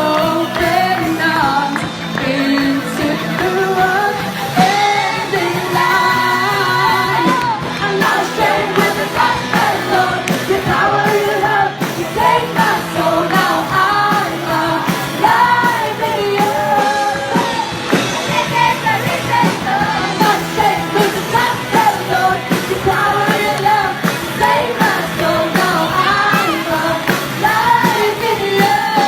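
A band playing a loud rock song with a lead singer, and some shouting or yelling vocals.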